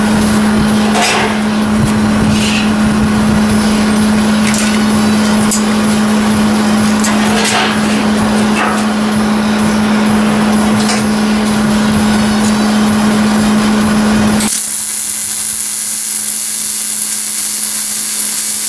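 A steady hum with scattered metallic knocks as steel parts are handled. About 14 seconds in, a wire-feed (MIG) welder's arc strikes and runs with a steady crackling hiss as the steel chimney tube is welded onto the rocket stove's firebox.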